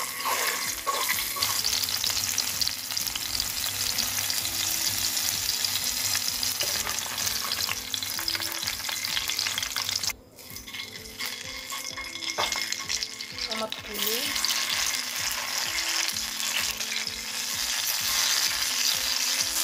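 Whole shallots sizzling in hot oil in a frying pan, a dense hiss full of fine crackles. About halfway the sizzle drops off briefly, then whole tomatoes sizzle in the same oil.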